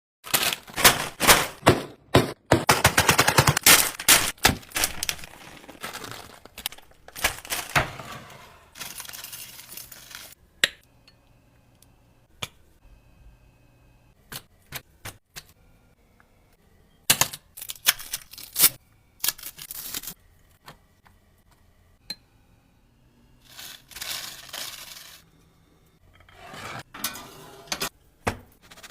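Sandwich-making kitchen sounds: sharp clicks, clinks and crackly crunching noises from utensils and food being handled and cut, in clusters with quiet gaps. They are busiest in the first ten seconds.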